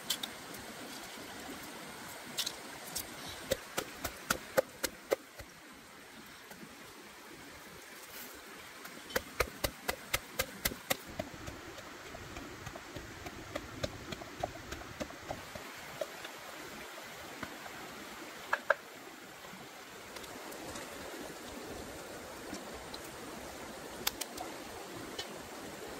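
Steady rush of a flowing stream, with scattered sharp clicks and taps, some in quick runs of several a second.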